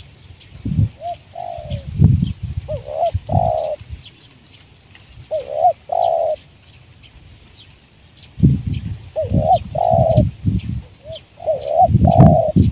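Spotted dove cooing in short phrases of two or three notes, each note swinging up briefly then holding, several phrases in a row. A low rumbling noise comes and goes between and under the coos, heaviest in the second half.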